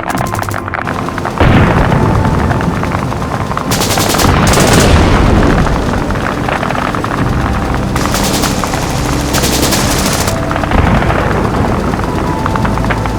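War sound effects: a loud boom about a second and a half in, then several bursts of rapid machine-gun fire over a continuous low rumble.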